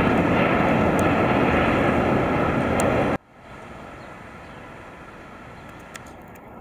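Jet engines of a departing Airbus A380 running at takeoff thrust as it climbs out close overhead: loud and steady, cut off suddenly about three seconds in. A much quieter steady aircraft engine hum follows.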